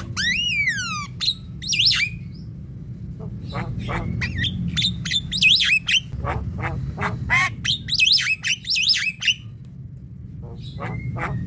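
Javan myna singing a varied song: it opens with a loud whistle that rises and falls, then runs into sharp clicks, squeaky gliding notes and chattering calls, over a steady low hum.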